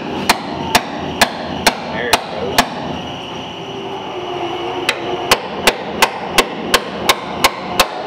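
Hammer striking a punch held against the car's steel frame, knocking out the rivets and remnants of the old transmission mount. The blows are sharp metal-on-metal strikes: six in the first two and a half seconds, a pause, then a steady run of about three a second.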